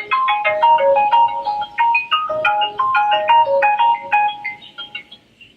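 A ringtone playing on a Sharp Aquos Pad SH-08E tablet: a quick, bright melody of short notes that fades out about five seconds in.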